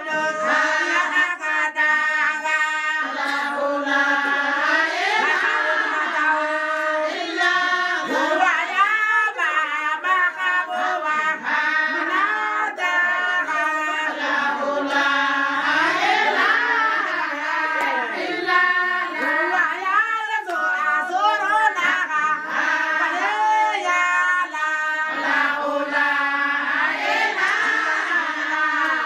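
A group of women singing together, one continuous chant-like song whose melody keeps rising and falling.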